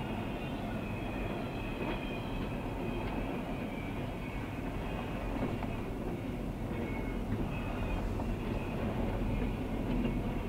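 Freight train rolling slowly past on the near track, a steady rumble of wheels on rail with faint high wheel squeals now and then: a CSX local backing up with covered hoppers and a tank car. A double-stack intermodal freight runs on the far track at the same time.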